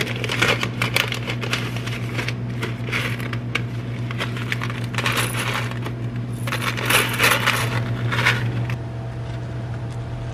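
Foil-lined plastic cereal pouch crinkling as it is torn open and handled, in irregular bursts, with dry cereal rattling inside. A steady low hum runs underneath.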